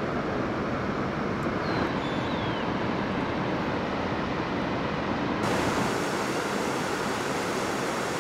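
Steady rush of a whitewater mountain river tumbling through a rocky gorge; the hiss turns brighter about five seconds in.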